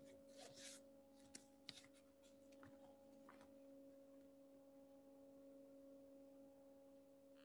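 Near silence with a faint steady hum. In the first three seconds, faint rustling and a few light knocks as a sheet of paper and a book are gathered up.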